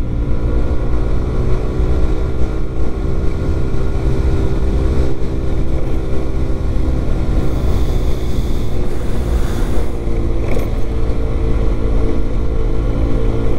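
Lance PCH 125 scooter's engine running at a steady speed while riding, with wind buffeting the microphone.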